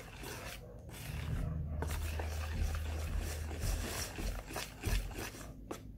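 Metal wire whisk beating cake batter in a plastic basin, the wires rubbing and scraping against the bowl in quick, irregular repeated strokes.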